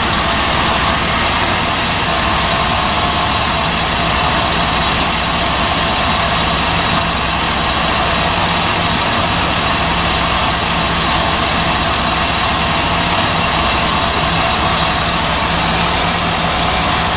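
2003 Chevy Silverado 2500 HD's 6.0-litre gas V8 idling steadily, with no rise or dip in level, while it is left running after a repair for a reduced-engine-power fault.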